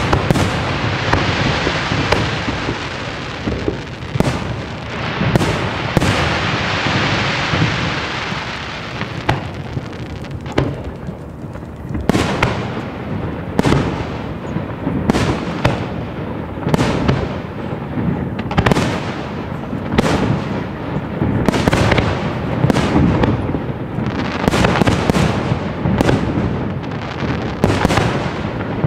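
Large F4-class professional fireworks display: aerial shells bursting one after another with sharp booms, coming thick and fast in the second half. In the first third, stretches of dense hiss and crackle fill the gaps between the bursts.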